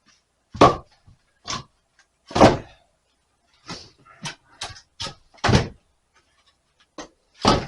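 A series of about ten irregular knocks and thuds, short and sharp, with gaps of a fraction of a second to over a second between them.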